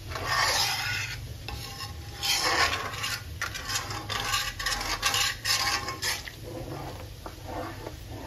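A metal spatula scrapes and stirs through cream boiling in a large kadhai as the cream cooks down into desi ghee, with a bubbling sizzle underneath. The scraping strokes are louder for the first six seconds or so, then softer.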